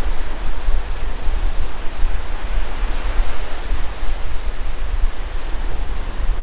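Surf breaking steadily on a sandy beach, with wind buffeting the microphone in a constant low rumble.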